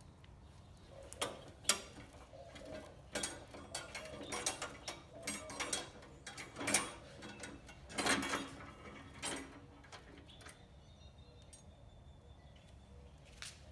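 Irregular clicks, knocks and clunks of hand tools and metal parts being worked on a riding lawn mower, heaviest through the first two-thirds, then quieter.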